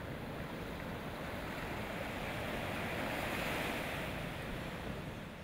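Ocean surf breaking and washing up a sandy beach: a steady rush that swells about midway and eases near the end.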